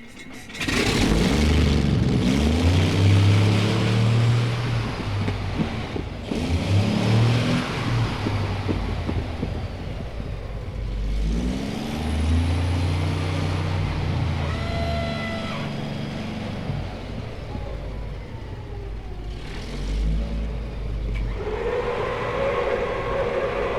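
M48 medium tank's engine starting up about a second in and revving in several bursts, each one rising in pitch and then settling. A steady whine joins near the end.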